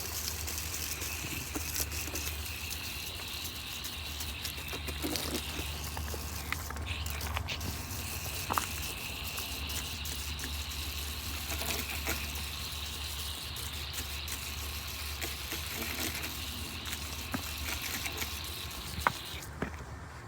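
Garden hose spraying water onto an air-conditioner condenser coil at weak pressure, a steady hiss that stops briefly about six seconds in and cuts off near the end, with light patters and clicks and a low hum underneath.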